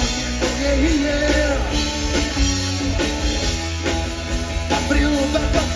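Live rock band playing: electric guitars, bass and a drum kit driving a steady beat.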